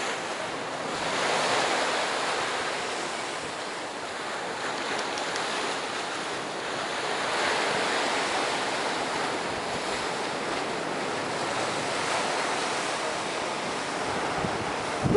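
Sea waves washing against a rocky shore: a steady rushing that swells and eases a couple of times, with wind buffeting the microphone.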